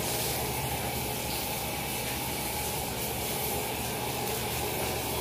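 Handheld shower head spraying a steady stream of water onto a person's body, splashing off the skin as the soap is rinsed off.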